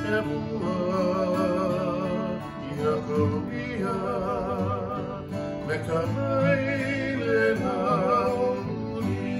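Two acoustic guitars strummed together, accompanying a voice singing a melody of held notes with a strong vibrato.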